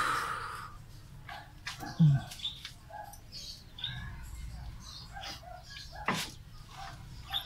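Birds chirping in the background, with a dull knock about two seconds in and a sharp click about six seconds in from hand tools at work on an engine's valve springs.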